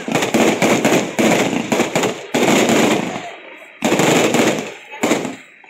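Fireworks exploding in rapid succession, several sharp bangs a second, each with a short rolling tail. A short lull about three seconds in ends with another loud burst, and the bangs fade near the end.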